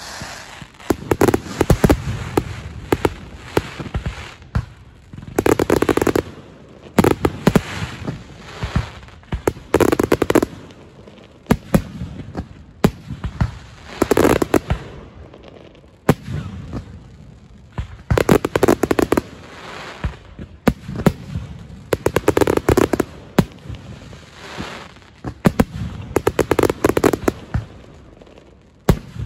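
Fireworks finale: dense volleys of sharp bangs and rapid crackling, swelling into heavier clusters of blasts every three to four seconds.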